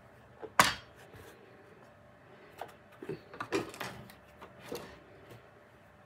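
Kitchen handling noises: a sharp knock about half a second in, then a few lighter knocks and taps as pieces of dough are pressed into the cups of a baking tin.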